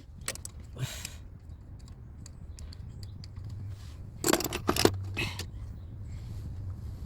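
Workshop handling noise: scraping and a few sharp metallic knocks and clicks, loudest about four to five seconds in, over a steady low hum.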